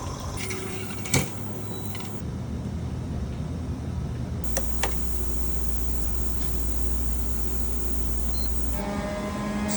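Steady machine hums from laboratory equipment, changing abruptly every few seconds. A sharp click comes about a second in, and two lighter clicks follow a few seconds later.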